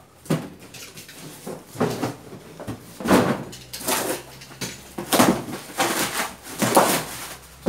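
Rustling and crinkling of plastic packaging and cardboard as products are dug out of a cardboard shipping box, in a series of short noisy bursts about once a second.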